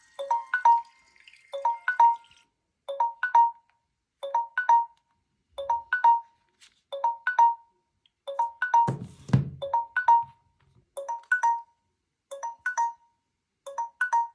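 Smartphone alarm tone ringing: a short phrase of three or four high notes, repeated about every second and a half. A brief low buzz comes in about nine seconds in.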